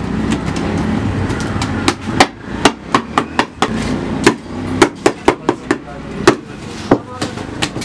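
Hands slapping and patting rounds of flatbread dough, stretching them between the palms and against the table: a quick, uneven run of sharp smacks starting about two seconds in.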